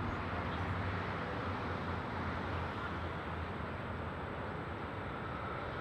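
Steady distant vehicle rumble with a constant low hum.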